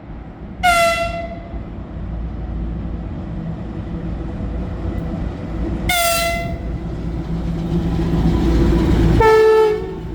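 VL10U electric locomotive sounding its horn: two short toots on a high note about five seconds apart, then a lower, slightly longer toot near the end. Underneath, the rumble of the approaching freight train grows louder.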